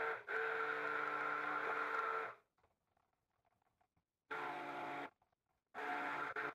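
Electric stick blender running in short pulses in a bowl of soap batter, a steady motor whine that stops and starts: one long run of about two seconds, a pause, then two shorter bursts. The batter is being blended to thicken it.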